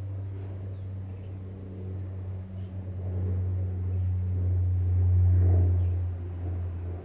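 A steady low engine hum that grows louder to a peak about five seconds in and then eases, with faint short bird chirps above it in the first few seconds.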